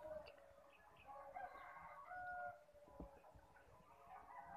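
Faint rooster crowing: drawn-out, pitched calls, with a couple of soft knocks.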